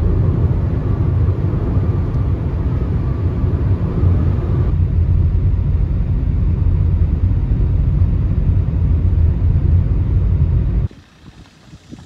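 Steady low road and engine rumble inside a moving car's cabin, cutting off abruptly about eleven seconds in to a much quieter background.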